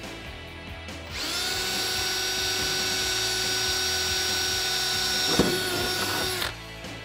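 Cordless drill with a small bit drilling out the centre of a plastic push-rivet in a car's wheel-well liner: a steady whine that starts about a second in and runs for about five seconds, with a sharp knock shortly before it winds down and stops. Background music runs underneath.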